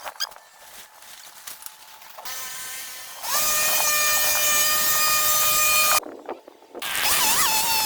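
Chainsaw's small two-stroke engine running at high revs with a steady pitch from about three seconds in. It cuts out suddenly about six seconds in, then comes back with a wavering pitch that slowly rises, as if bogging and recovering while cutting. Before that, quieter scraping and clicks.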